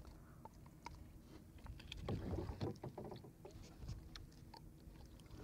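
Low wash of water lapping against a small wooden outrigger canoe's hull, with scattered light knocks and clicks, a little busier about two seconds in.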